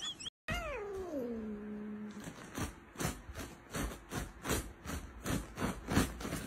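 Orange tabby cat yowling: one call that slides down from high to a low, drawn-out growl, followed by a run of short sharp sounds about three a second.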